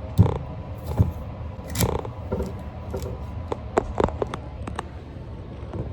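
Scattered small clicks and a few louder knocks, like objects being handled at close range, over a low steady rumble.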